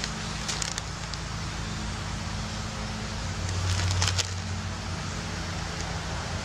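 Outdoor background: a steady low rumble of distant road traffic and wind, with two short rustles, about half a second in and again around four seconds in, where the rumble briefly swells.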